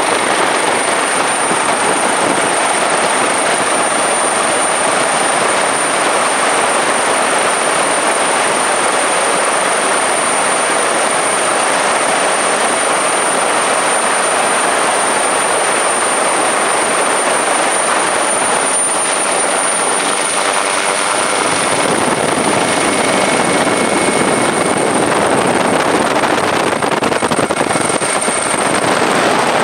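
Helicopter noise heard from on board: a steady loud rush of rotor and wind, with a constant high turbine whine above it that dips slightly near the end.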